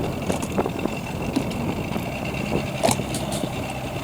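Boat motor idling at trolling speed, a steady low hum, with a few sharp clicks, the loudest about three seconds in.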